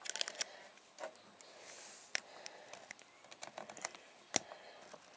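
Brass Yale 50mm padlock being handled and single-pin picked: faint, irregular metal clicks and taps from the lock and the pick and tension wrench in the keyway. There is a quick flurry of clicks at the start and a sharper single click about four and a half seconds in.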